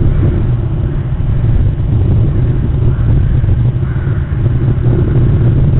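A loud, steady low rumble that wavers slightly in level, with no distinct events.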